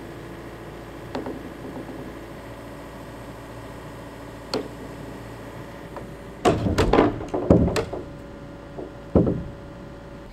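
Wooden knocks and heavy thuds of a timber-framed stud wall being stood up and knocked into place: single knocks at first, then a quick run of loud thuds in the second half and one more near the end.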